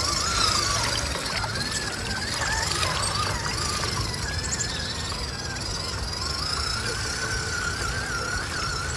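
Whine of an RC crawler's brushed electric motor and gears, wavering up and down in pitch as the throttle changes, over a steady rush of stream water as the truck wades through it.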